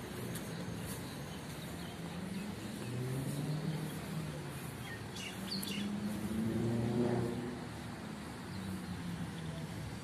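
Car engines passing on a road, a low hum that swells twice, with a few brief chirps of small birds about five seconds in.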